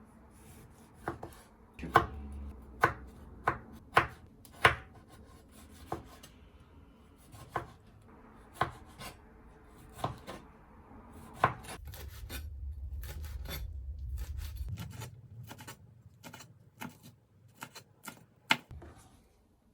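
A knife chopping on a cutting board: about a dozen sharp, irregularly spaced strokes, with a low rumble for a few seconds past the middle.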